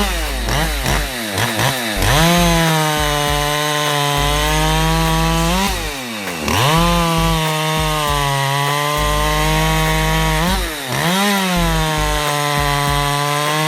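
Poulan Pro PR5020 50cc two-stroke chainsaw blipped a few times early on, then run at full throttle through three cuts of about four seconds each. Between the cuts it drops back toward idle, and the pitch dips a little while it is cutting.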